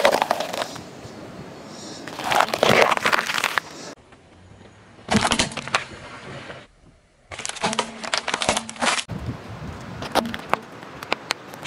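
A car tyre rolling over and crushing a string of objects one after another: bell peppers squashing, a plastic game cartridge cracking apart, and sticks of chalk snapping near the end. The crunching and cracking comes as several short bursts with abrupt cuts between them.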